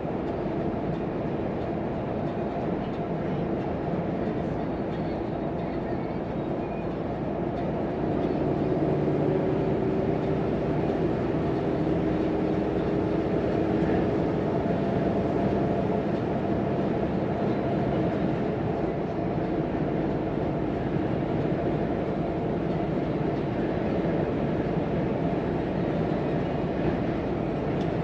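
Volvo FM truck's diesel engine and road noise heard from inside the cab while driving with a car transporter in tow: a steady drone that gets a little louder about eight seconds in.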